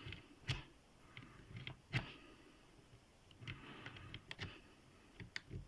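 Lock pick zipped across the pins of a Trains 30 mm padlock: faint scraping with a few sharp clicks, the loudest about half a second and two seconds in.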